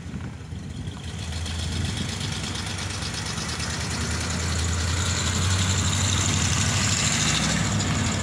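1987 C30 flatbed truck's 350 cubic-inch throttle-body-injected V8 running at low speed as the truck drives up, its steady engine hum growing louder as it approaches.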